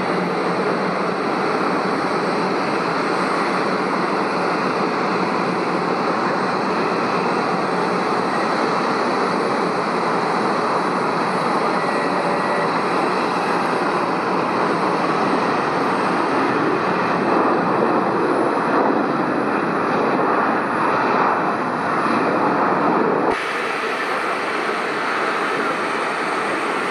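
Jet airliner landing: a steady rush of engine and airflow noise that swells toward the end, then breaks off suddenly near the end.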